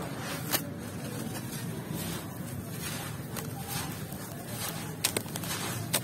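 Dry sand-and-cement lumps being crumbled by hand in a plastic tub: a steady gritty crunching and pouring of grit, with a few sharp crackles as pieces break.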